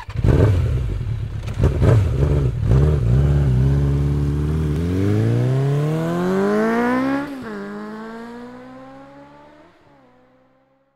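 An engine revving. After a rough, knocking start, its pitch climbs steadily for about two seconds and drops sharply as at a gear change. It then rises gently again while fading away.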